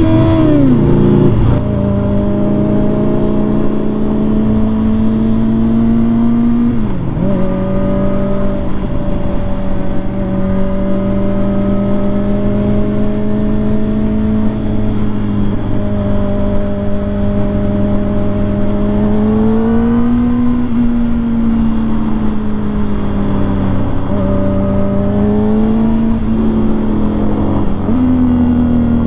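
Kawasaki Ninja ZX-4RR's inline-four engine running steadily under way. A rev falls away at the very start, and the pitch dips and rises a few times with the throttle.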